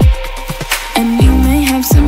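Background electronic pop music with a steady beat of deep bass hits that slide down in pitch, under a synth or vocal melody.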